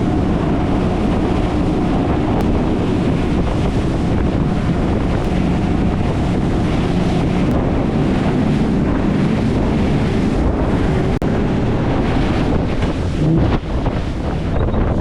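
Boat running at speed across open ocean: heavy wind buffeting the microphone over the rush of water along the hull and a steady engine drone.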